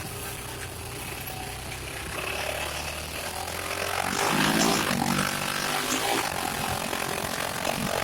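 Honda Pioneer 700-4 side-by-side's single-cylinder engine running at low revs, then revving up about four seconds in and easing back down.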